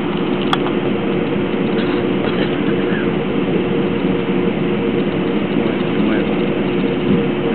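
Airbus A321's jet engines running steadily, heard inside the cabin as an even drone with a constant hum of tones, while the airliner taxis. A single short click about half a second in.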